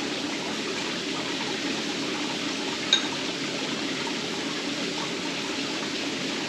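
A steady rush of running water, even and unbroken. About three seconds in there is a single short clink.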